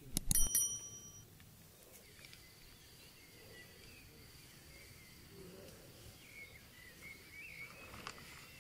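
A click followed by a short ringing bell ding, the sound effect of a subscribe-button animation, then quiet outdoor ambience with faint wavering bird calls and a thin steady high tone.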